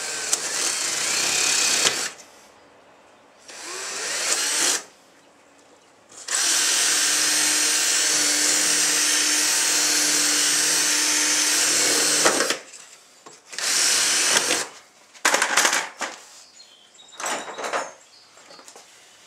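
Power drill with a 3/16-inch bit boring a row of holes through a personal watercraft's hull, the first step in cutting a slot for a cleat's connector piece. It runs in several separate spells, the longest a steady run of about six seconds, followed by a few short bursts near the end.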